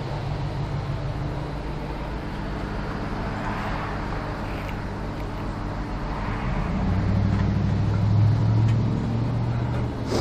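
A low engine rumble, steady at first, then louder for a few seconds near the end.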